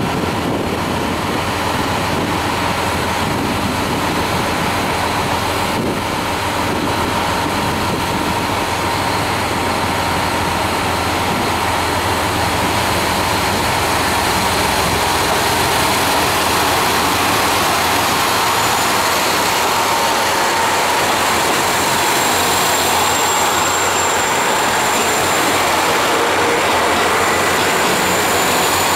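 JR Hokkaido KiHa 183 series diesel train pulling away from a station, its underfloor diesel engines running steadily under power as the cars roll slowly past. It grows a little louder about halfway through, and a high whine joins in the last third.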